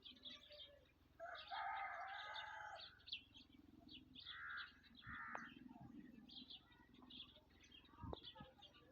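Black francolin calling faintly: one harsh call of about a second and a half starting about a second in, then two short calls about four and five seconds in, over steady high chirping of small birds.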